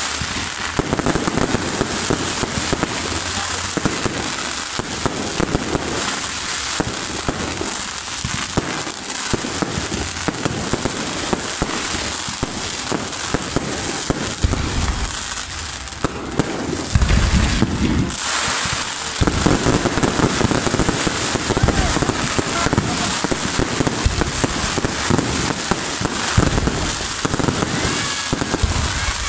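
Fireworks display going off in a dense, continuous barrage of bangs and crackling stars, loudest with a run of heavy booms about seventeen seconds in.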